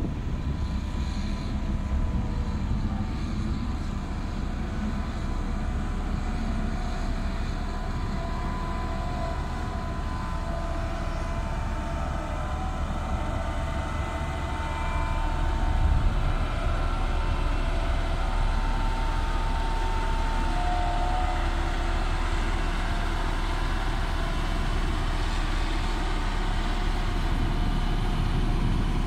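Diesel engine of a Caterpillar single-drum roller compactor running steadily as the machine rolls across a packed coal base. The engine gets louder about halfway through as the roller comes close.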